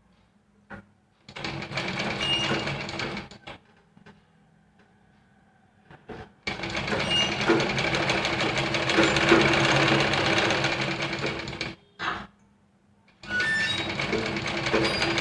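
Sewing machine stitching in three runs: a short one about a second in, a long one of about five seconds from the middle, and another starting near the end. Between the runs it stops, with a few small clicks. The stitching is the topstitch that holds piping along a blouse's round neckline.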